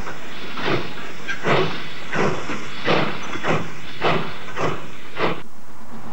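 Steam locomotive exhaust chuffing, about one and a half beats a second and quickening slightly. About five seconds in the chuffing gives way to the steady rumble of a train running.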